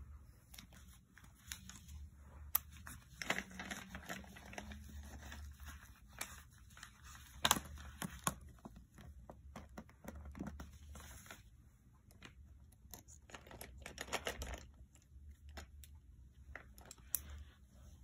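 Ballpoint pen scratching on lined paper, and paper sheets rustling and crinkling as they are handled, with a few sharp taps, the loudest about halfway through.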